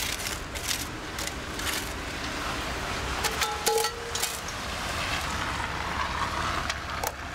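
Metal tongs and cast iron Dutch oven gear being handled: scattered clicks and knocks, with a brief metallic ring about three and a half seconds in, over a steady outdoor background rumble.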